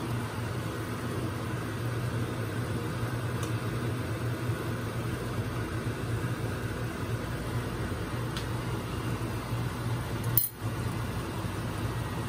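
Pork steak sauce simmering in a nonstick frying pan under a steady low hum, with a metal spoon clinking against the pan a few times as the sauce is stirred, and one sharp click about ten seconds in.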